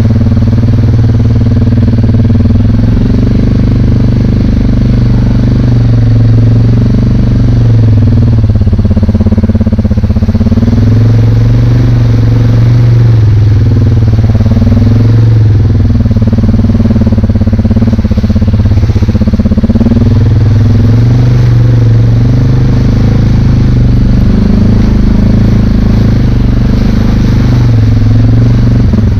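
ATV engine running steadily as the machine is ridden over a rough trail, its pitch drifting up and down with the throttle.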